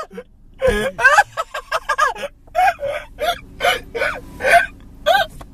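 A person's voice making a rapid string of short wordless vocal sounds.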